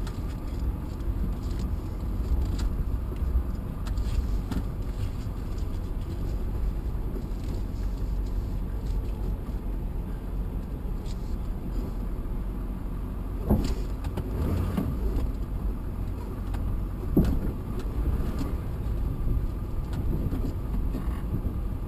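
Steady low rumble of a vehicle driving slowly on gravel, heard from inside the cabin. There are two short knocks a little past the middle as the wheels roll onto the wooden ferry ramp and deck.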